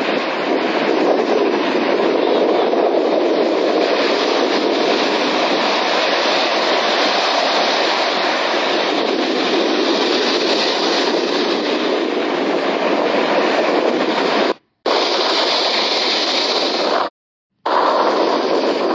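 Sea waves and surf making a steady, dense rush of noise, dropping out to silence twice, briefly, near the end.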